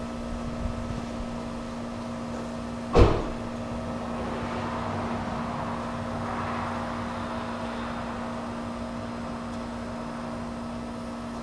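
2001 Chevy Tahoe V8 idling steadily through a custom single exhaust with a Magnaflow glasspack muffler, soon after a cold start. A single sharp thump sounds about three seconds in.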